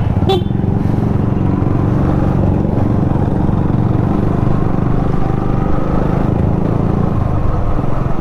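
Motorcycle engine running steadily while riding on the road, a dense low rumble throughout. A brief sharp click comes near the start.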